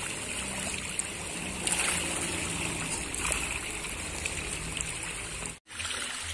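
A dense school of patin catfish thrashing and splashing at the surface of a pond in a feeding frenzy, a steady wash of water sounds with small splashes. The sound breaks off for a moment about five and a half seconds in.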